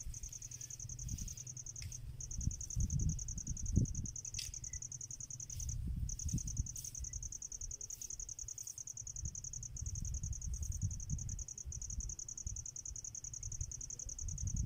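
An insect trilling steadily in a high, rapid pulse, breaking off briefly a few times, over a low, uneven rumble.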